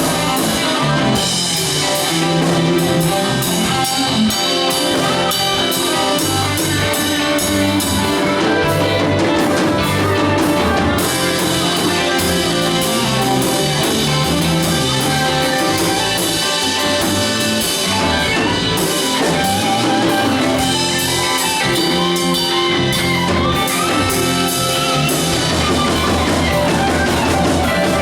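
A band jamming together, with drum kit and guitar, playing without a break.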